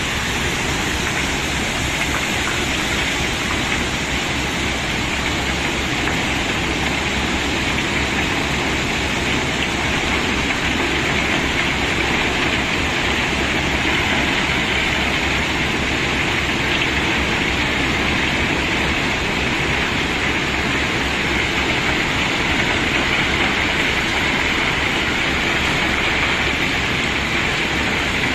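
A mass of cobblestones sliding and clattering off a tipped load in a continuous rushing rattle, like heavy rain.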